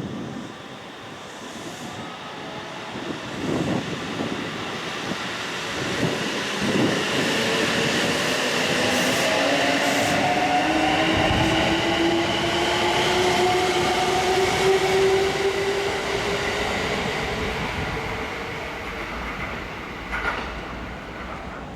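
Kintetsu 23000 series Ise-Shima Liner electric train accelerating away from a station. Wheels knock over rail joints early on, then the traction motors' inverter whine rises steadily in pitch over the running noise and fades as the train draws away.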